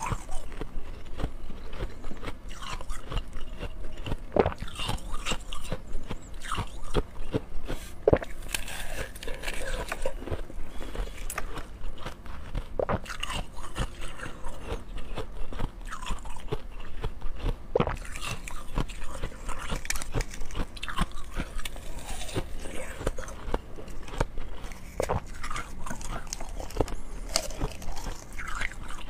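Close-miked biting and crunching of frozen slush ice, with chewing: many irregular crisp crunches throughout.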